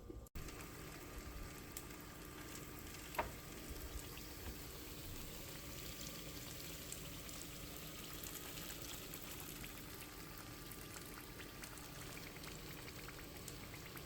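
Catfish fillets coated in fish fry frying in hot oil in an aluminum pan: a steady, quiet sizzle with fine crackling. One brief sharp sound about 3 seconds in.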